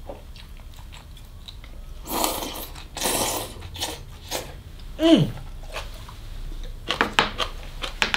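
A person eating stir-fried morning glory with chopsticks: two noisy bursts of sucking the greens in, then chewing, with a short falling hum about five seconds in. Light clicks and knocks near the end as the bowl and chopsticks are handled.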